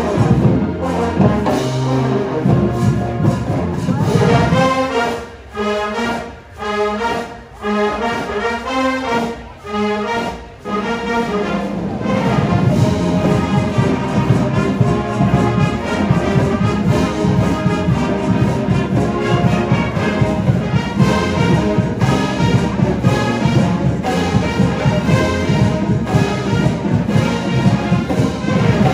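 College marching band playing, brass and drums. Around five seconds in, the band plays a run of short chords with brief gaps between them, then from about twelve seconds it plays on continuously with drums.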